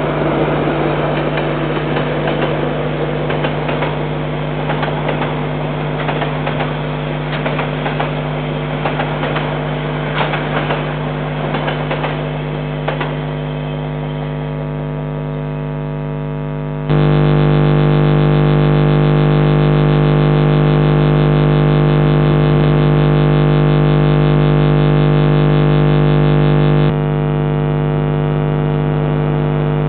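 Steady electrical mains hum with a buzzy series of overtones, under the noise of a diesel-hauled container freight train passing for about the first thirteen seconds, with irregular clicks. The hum turns louder about seventeen seconds in and eases near the end.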